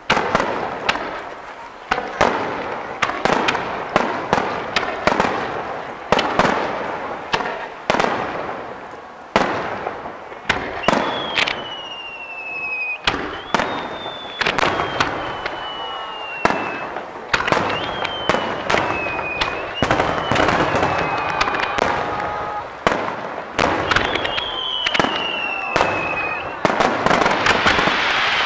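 Aerial fireworks bursting in rapid succession, sharp bangs every second or so, with several high whistles that fall in pitch from about eleven seconds on and a dense crackle building near the end.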